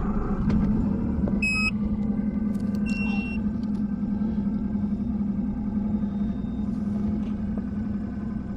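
Bass boat's outboard motor running steadily at speed, a constant even drone. Two short high beeps sound about one and a half and three seconds in.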